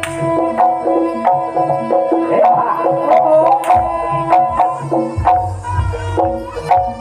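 Javanese jaranan gamelan music played over loudspeakers: kendang hand-drum strokes over quickly repeated tuned metal-percussion notes, with deep low strokes joining in about halfway through.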